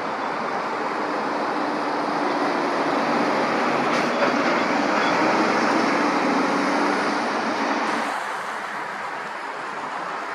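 A lorry driving past on the road: engine hum and tyre noise grow louder, then fall away about eight seconds in.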